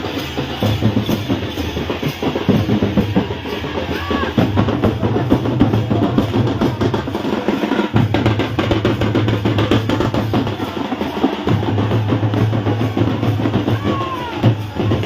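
Music with heavy drumming and a steady low bass line, the bass dropping out briefly twice.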